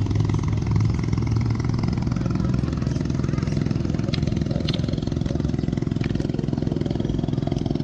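An engine running steadily at an even, low pitch, with a couple of faint ticks over it about four seconds in.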